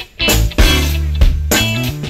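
Background music with guitar, bass and drums. A brief dip right at the start, then a held low bass note and chord.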